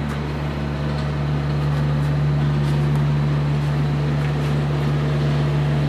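A machine running with a steady low hum and an even whooshing noise, unchanging throughout.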